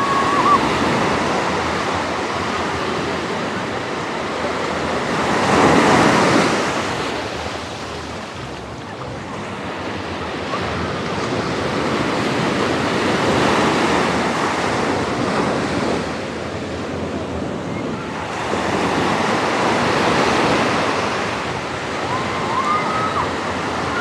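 Small ocean waves breaking and washing up a sandy beach at the water's edge, a steady surf that surges and ebbs every six or seven seconds, loudest about six seconds in.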